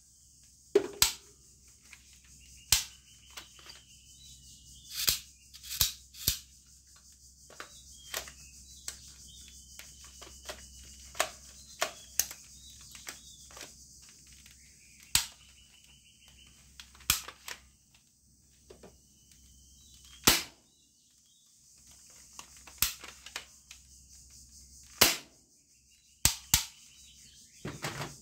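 Sharp plastic clicks and knocks from a toy assault rifle being handled and its parts worked, coming at irregular intervals, some in quick pairs, over a steady high hiss.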